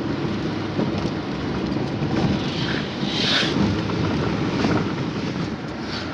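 Steady rumbling road and engine noise inside a moving van's cabin, with a brief scratchy rustle about three seconds in.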